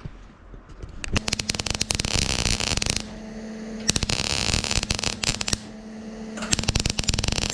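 Welding on thin 24-gauge sheet steel: the arc crackles in three bursts of a second or two with short pauses between them, over a steady low hum.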